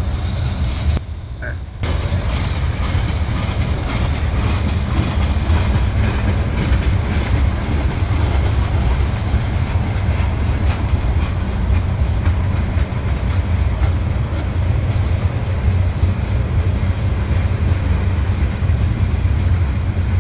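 Freight cars rolling past at close range: a steady, loud rumble of steel wheels on rail with a fast run of clicks over the rail joints. The sound briefly drops out about a second in.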